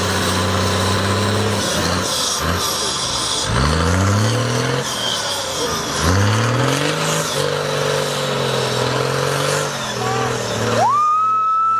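Off-road 4x4 vehicle engine labouring in mud, revving up sharply twice and then holding high revs. Near the end comes a short, high whistle-like tone.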